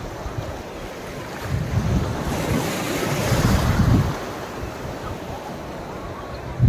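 Sea surf breaking and washing through the shallows, with wind rumbling on the microphone. The wash grows to its loudest between about two and four seconds in, then eases.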